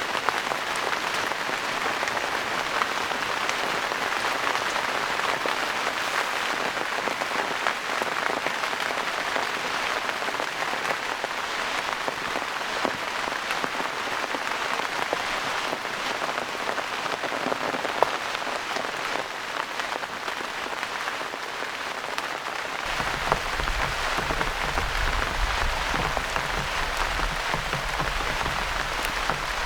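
Heavy rain falling steadily, a dense hiss of many fine drops. A low rumble joins underneath about three-quarters of the way through.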